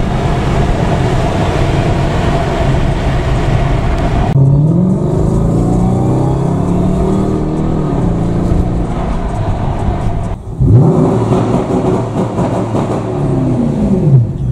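Car engines heard from inside a moving car, the engine note rising and falling several times as they accelerate and change gear, with a sharp rev-up about ten seconds in.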